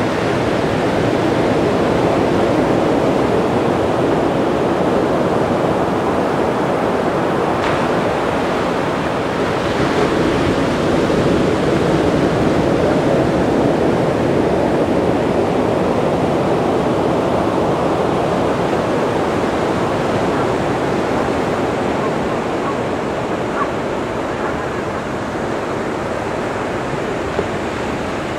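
Ocean surf breaking and washing onto the beach: a steady rush of water that swells and eases slowly.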